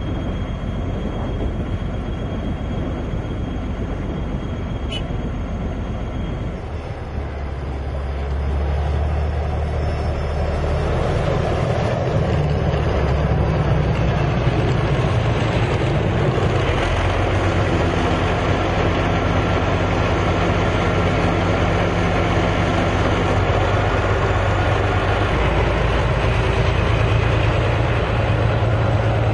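Heavy machinery running steadily. It grows louder about seven seconds in, with a low steady hum under the noise from then on.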